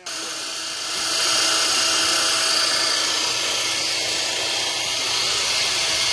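Pneumatic angle die grinder running steadily: a loud, high hiss with a faint whine, starting suddenly and getting a little louder about a second in.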